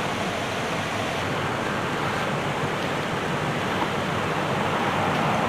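Steady outdoor rushing noise, swelling slightly near the end.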